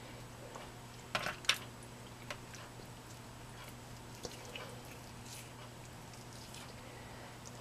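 Light clicks and knocks of seasoning shakers being handled and set down on a granite countertop, the loudest a little after a second in, over a steady low hum.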